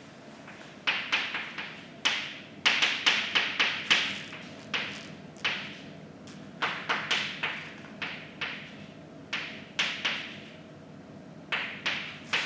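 Chalk writing on a blackboard: irregular taps and short scratches in quick clusters, with brief pauses between the symbols.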